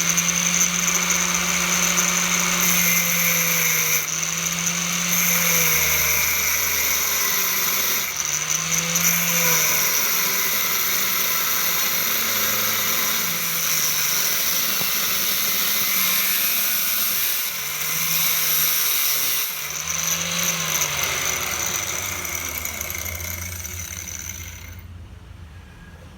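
Electric power tool, most likely a grinder, dressing welded steel. The motor gives a steady high whine over a harsh grinding hiss that changes as the tool is worked. It stops about a second before the end.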